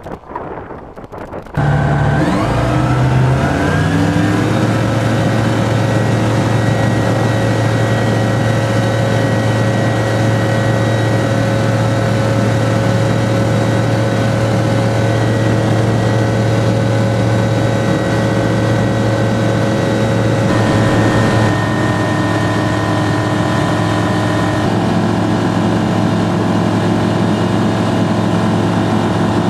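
Rotax 912 flat-four engine and propeller of a Zenith CH-701 STOL ultralight coming up to takeoff power about a second and a half in, the pitch stepping up. It then runs loud and steady through the takeoff roll and climb-out, with a change in tone about two-thirds of the way through.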